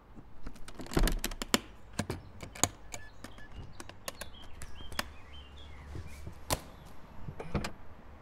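A series of irregular sharp taps and knocks, several close together in the first second and a half, then more spaced out, with faint bird chirps in the background.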